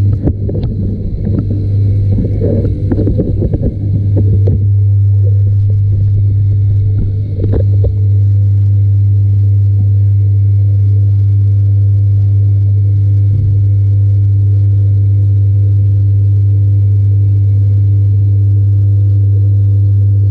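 Loud, steady low electrical hum of the tank's pump, picked up by a camera held under water. Knocks and rubbing from the camera being moved come through in the first four seconds or so, with one more knock about seven seconds in.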